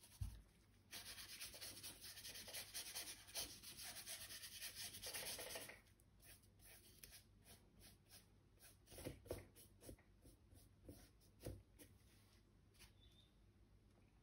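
Faint paintbrush scrubbing oil paint: a soft bump at the start, then about five seconds of steady scratchy rubbing that stops suddenly, followed by a few light dabs and short strokes.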